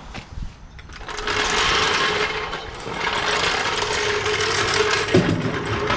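A small motor running steadily, starting about a second in, with a brief dip partway through.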